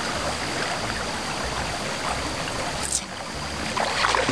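Small creek's water running steadily, with a short flurry of splashing near the end.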